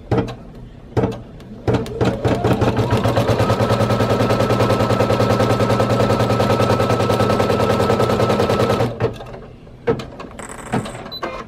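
Brother PE800 embroidery machine sewing a placement stitch: a few clicks, then the needle starts up with a rising whine and runs a rapid, even rattle of stitches for about seven seconds before stopping, followed by a couple more clicks.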